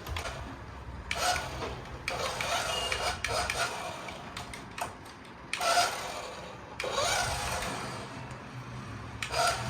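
Toy remote-control SUV running in several short spurts, its small electric motor and plastic gears whirring.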